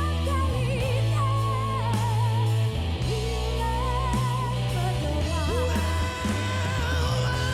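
A live band playing a song, with a singer holding long, wavering notes over bass and guitar.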